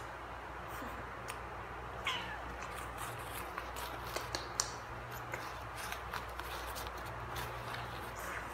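Baby monkey gives a short squeal that falls in pitch about two seconds in, while the plastic packaging of a disposable diaper crinkles and crackles in the handling.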